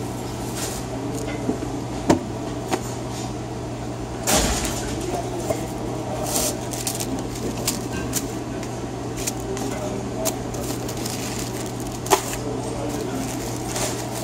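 Clicks and knocks of plastic bread-bin lids and a short rustle of deli paper as bread slices are taken out, over a steady low hum. The sharpest clicks come about two seconds in and near the end, the rustle about four seconds in.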